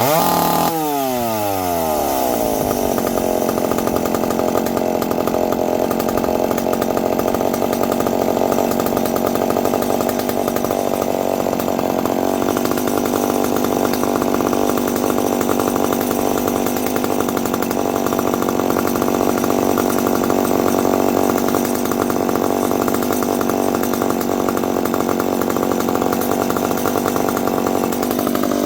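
McCulloch PM 700 two-stroke chainsaw engine dropping in speed over the first couple of seconds after a rev, then running steadily at one speed.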